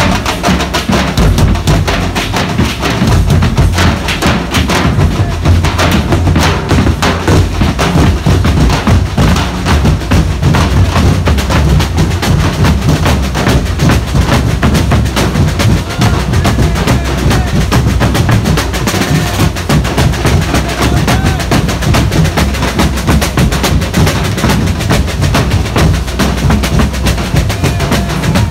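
Massed drumming by a street festival drum band: large steel-shelled barrel drums and rope-tensioned drums struck with sticks, playing a loud, continuous, dense rhythm with heavy low booms.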